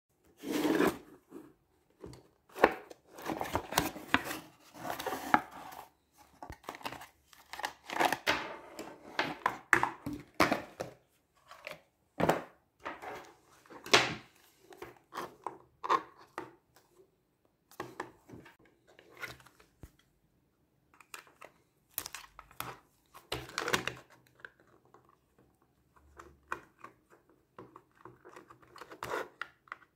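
Handling noise from a small TFT-LCD car monitor and its cable being picked up and turned over in the hands on a wooden tabletop: irregular rustles and scrapes broken by sharp knocks, with short pauses between.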